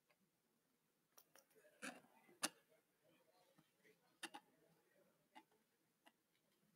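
Near silence with a few faint, scattered clicks and light taps, the sharpest about halfway through.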